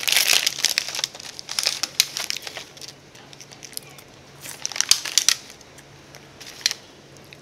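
Crinkly plastic snack bag being torn open and handled, in several irregular rustling bursts: most in the first few seconds, another around five seconds in.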